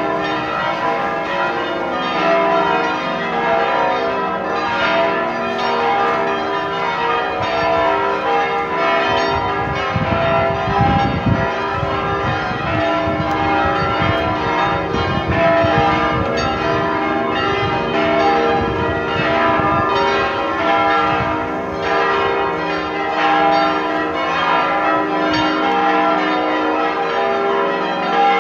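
Full peal of the church bells of the Basilica of St. James and St. Agnes in Nysa, all the bells ringing together, their strokes overlapping without a break. It is the call to the evening rosary service.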